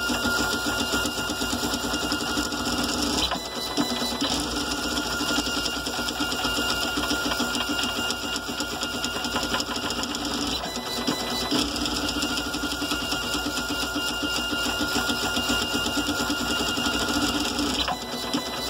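GARCAD 3D printer's motors driving the print head at 400 mm/s with 16 m/s² acceleration: a fast, constantly shifting mechanical buzz and whine as the head darts back and forth. The pattern changes briefly about every seven seconds.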